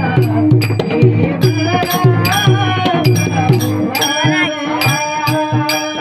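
A man singing a Varkari kirtan tune (chal) with a sweet, melodic voice, over a steady drum beat about twice a second, jingling hand cymbals and held instrumental notes.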